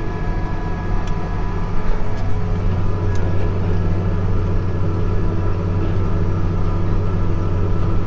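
Case IH Magnum 7130 tractor's diesel engine running steadily under load while pulling a field harrow, heard from inside the cab.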